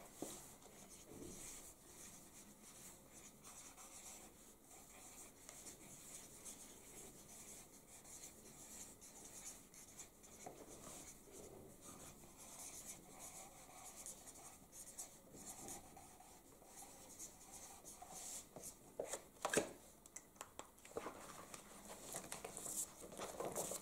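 Faint scratching of markers writing on paper, with a few short knocks about nineteen to twenty seconds in.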